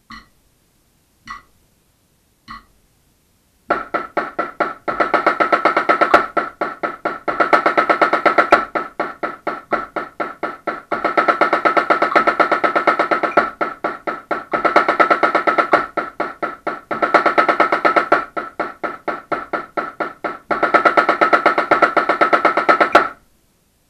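Pearl marching snare drum played with sticks: three single clicks about a second apart, then a slow rudimental exercise in which bars of quintuplet single strokes alternate with bars of dense double-stroke diddles, stopping about a second before the end.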